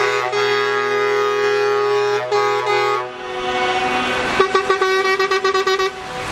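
Truck air horns sounding a long multi-tone chord for about three seconds, then, after a short gap, a quick run of short toots.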